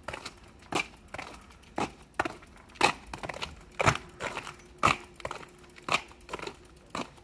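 Footsteps on an asphalt street at a walking pace, about two steps a second, each a short sharp scuffing click. A faint steady hum joins for a few seconds from about halfway.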